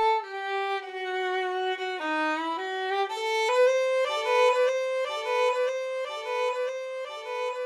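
Outro music: a single melodic instrument plays a slow tune of a few held notes, then, about three seconds in, moves into a quick repeating figure of short notes.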